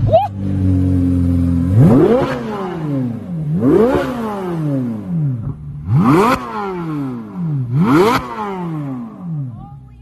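Chevrolet Corvette Z06's naturally aspirated flat-plane-crank V8 idling, then revved four times about two seconds apart, each rev climbing sharply and falling back to idle.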